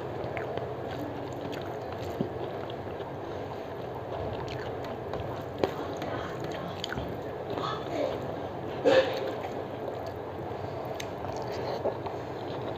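Eating with the hand from a metal plate: fingers mixing rice and food on the plate, chewing and mouth sounds, and small clicks, with one louder sharp click or crunch about nine seconds in, over a steady background hiss.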